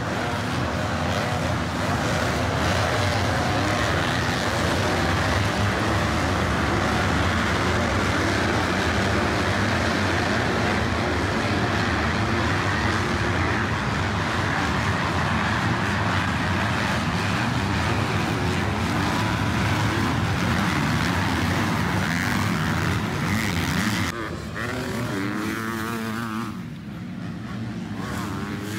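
A pack of motocross bikes racing, many engines revving together in a dense, steady wall of sound. About 24 seconds in this gives way to fewer, separate engines whose pitch rises and falls as they rev.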